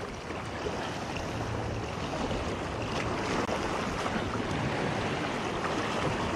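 Small waves washing and splashing steadily against the rocks at the water's edge.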